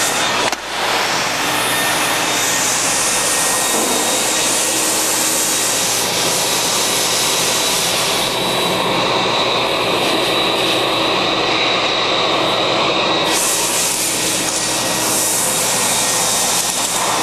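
Ruwac WS2320 240-volt single-phase industrial vacuum running at full suction, pulling glass bead media up through a floor tool and cyclone pre-separator: a steady, loud motor whine over a rush of air. The sound dips briefly about half a second in, and the upper hiss shifts in strength a couple of times later on.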